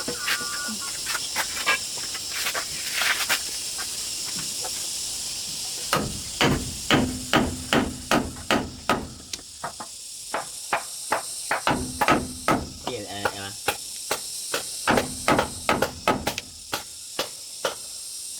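Repeated blows of a hand tool striking, about two to three a second, in runs with short pauses, starting about six seconds in. A steady high buzz of insects runs underneath.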